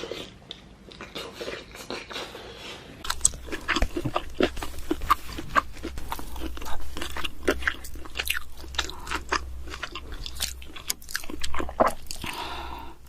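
Close-miked eating: food being bitten and chewed with many sharp, crisp crunches, coming thick and fast from about three seconds in.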